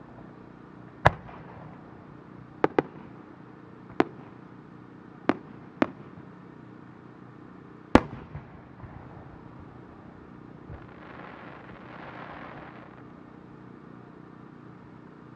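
Japanese aerial firework shells bursting overhead: seven sharp bangs over about seven seconds, some in quick pairs, the loudest one near the middle as a round red shell breaks open. A soft hiss follows for about two seconds.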